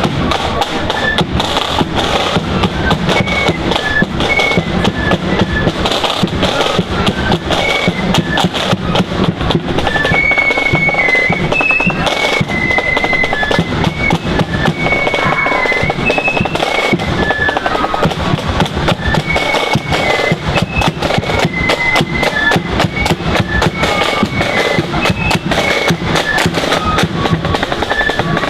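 Marching flute band playing a tune: flutes carry a high, quick melody over rapid, dense snare drumming and bass drum beats.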